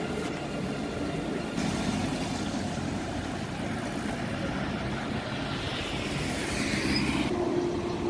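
Street traffic noise: vehicles running along a city road with a steady hum, and one vehicle passing with a swelling hiss a few seconds before the end. The background changes abruptly twice, at about one and a half seconds in and near the end.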